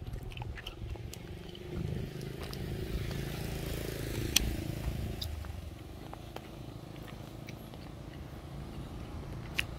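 A motor vehicle's engine passing on the road, growing louder about two seconds in and fading again after about five seconds.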